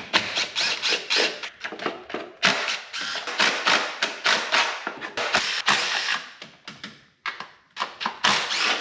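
Ratchet wrench clicking in quick runs with short pauses as the intake plenum bolts are loosened.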